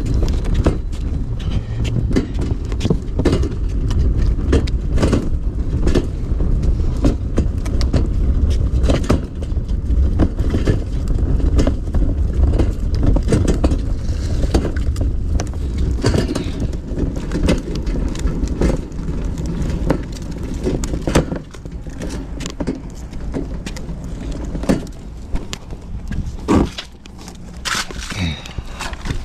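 Box truck on the move, heard from inside the cab: a steady low engine and road rumble with frequent rattles and knocks. The rumble drops away about two-thirds of the way through.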